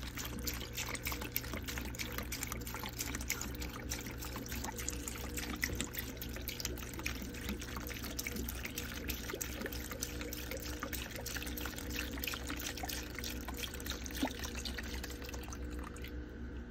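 Evapo-Rust rust remover poured from its jug into a clear plastic tub over rusty steel tools: a continuous splashing pour. It stops about sixteen seconds in.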